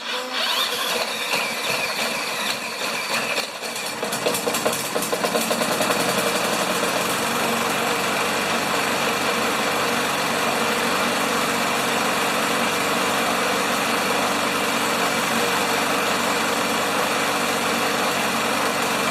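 Tecumseh 6 hp single-cylinder lawn mower engine starting on the pull after an ignition repair, running unevenly for the first few seconds, then picking up speed about four to six seconds in as the idle is turned up, and settling into a steady run.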